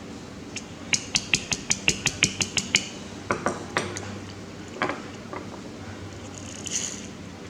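A quick run of light metallic clicks, about five a second, followed by a few scattered taps and knocks, like small metal parts or tools being handled.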